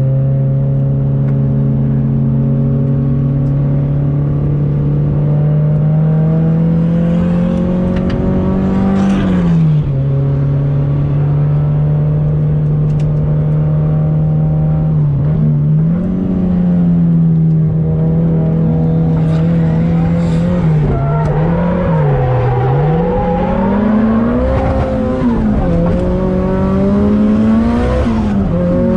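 Nissan Silvia S15's engine heard from inside the cabin, holding steady revs, rising and then dropping about nine seconds in. In the last third the revs swing up and down again and again as the throttle is worked through the corners.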